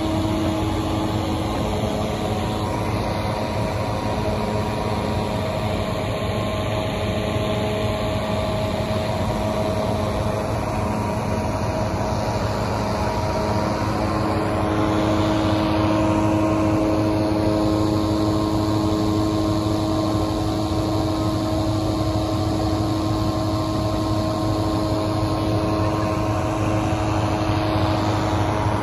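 Engine-driven inflation fans running steadily, blowing cold air into hot-air balloon envelopes lying on the ground: a constant engine drone with several steady tones, a little louder from about halfway.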